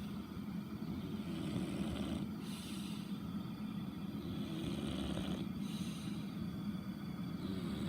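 An English bulldog mix snoring in slow, even breaths about three seconds apart, over a steady low hum.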